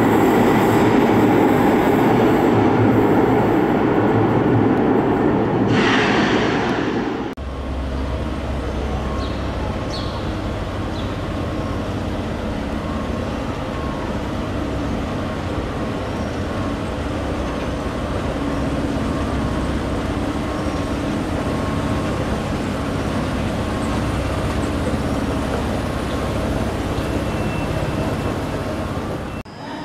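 Cercanías electric commuter train running through the station, a loud rush of wheels and motors with a brief high hiss about six seconds in. It cuts off suddenly and gives way to a quieter, steady low rumble and hum of a train.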